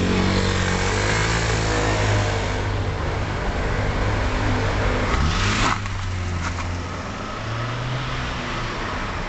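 A motor vehicle engine running steadily under a rushing noise. Its pitch shifts about five and a half seconds in, and the rushing eases just after.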